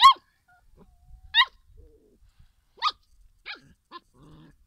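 Puppy giving five short, high-pitched yips, each dropping sharply in pitch, spaced roughly a second apart, the first few loudest.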